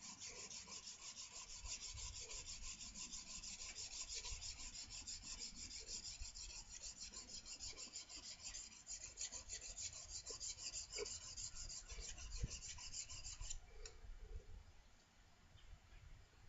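Steel plane blade being honed freehand on the 400-grit side of a diamond sharpening plate: quick, even back-and-forth scraping strokes that stop about three seconds before the end. This is the honing that raises a burr on the edge.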